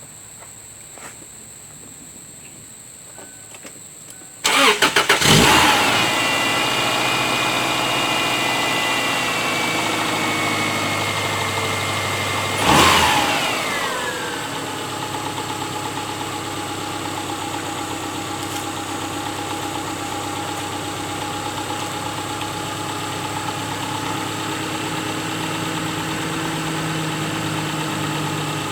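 A 2002 Subaru Outback's 2.5-litre flat-four engine is started about four seconds in and settles into a steady idle. This is the first start after fitting a new alternator and power steering belt. A high whine slowly falls in pitch early on, and a brief louder surge comes about halfway through.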